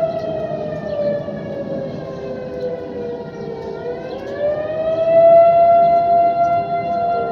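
Outdoor civil-defense warning sirens sounding their steady monthly test tone, at least two at different pitches. One sags in pitch and climbs back about four seconds in, and the sound swells louder soon after.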